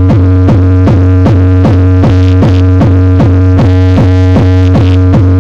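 Very loud electronic bass track played through a Hyundai Santa Fe's car sound system: a steady deep bass note under a kick drum that drops in pitch about four times a second, with two steady higher notes, repeating mechanically.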